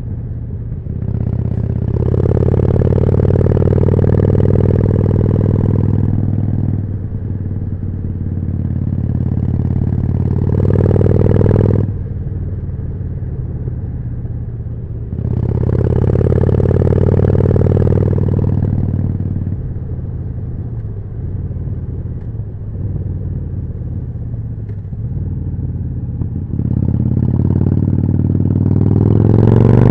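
Harley-Davidson Forty-Eight's V-twin engine running through a Jekill & Hyde exhaust while riding, getting louder under throttle several times and easing off between, then revving up near the end.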